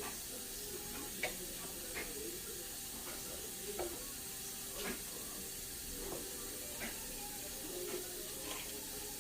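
Light, scattered clicks and knocks of jars and containers being handled during fridge cleaning, over a steady background hiss.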